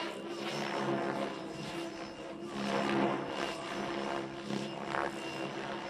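Radio-controlled helicopter flying aerobatic maneuvers: a steady hum of the motor and rotor, with the rotor noise swelling and fading as it pitches and swoops. It is loudest about three seconds in.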